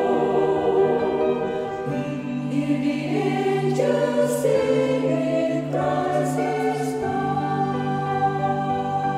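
Choir singing slow, held chords, moving to a new chord every second or two.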